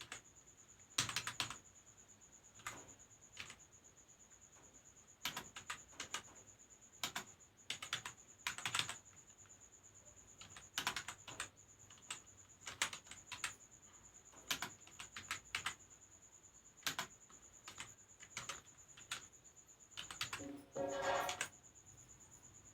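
Keys being typed on a computer keyboard in irregular runs of quick clicks with short pauses between, as in a typing speed test. A steady high-pitched whine sits underneath, and a brief pitched sound is heard near the end.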